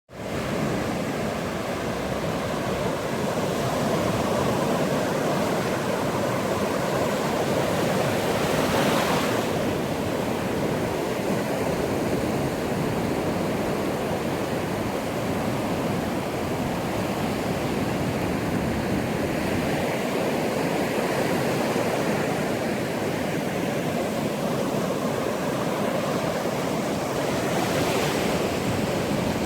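Atlantic Ocean surf on a beach: a continuous rush of waves, with a wave breaking louder about nine seconds in and again near the end.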